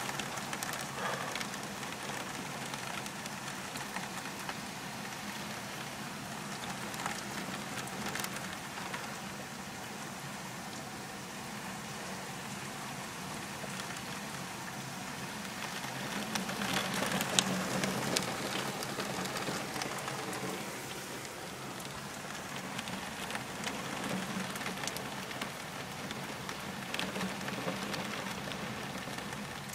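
Heavy rain falling steadily, with scattered sharp ticks of single drops, swelling louder for a few seconds around the middle.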